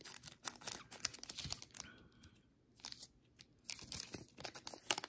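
Trading card pack wrapper crinkling and tearing as it is opened, in two spells of quick crackles with a quieter pause in the middle.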